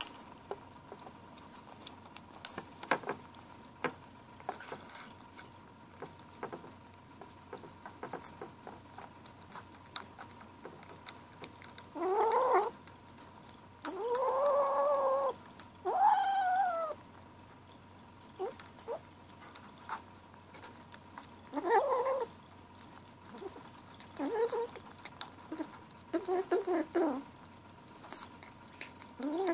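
Seven-week-old gray kitten growling and yowling as it eats from a can of wet food, a series of drawn-out calls from about halfway through, some rising then falling, the longest over a second. Faint licking and chewing clicks come between the calls.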